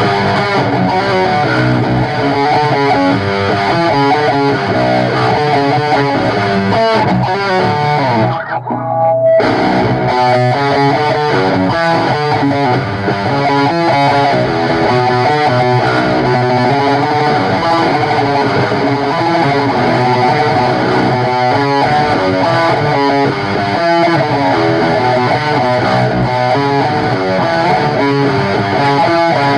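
Rock band playing: distorted electric guitar through effects, with bass guitar. The sound thins out for about a second roughly eight seconds in, then resumes.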